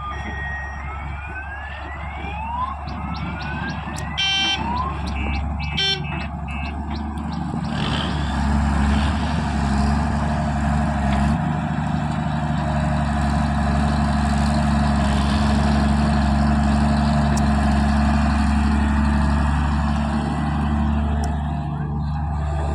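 Several short rising whistle-like tones in the first few seconds, then a diesel engine of heavy earthmoving machinery running steadily from about eight seconds in.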